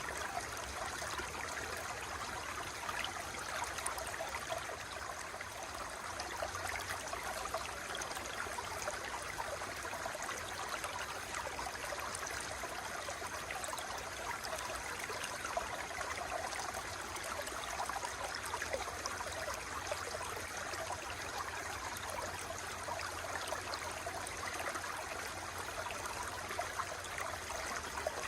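Water flowing steadily, with a fine, even splashing texture and a low rumble beneath.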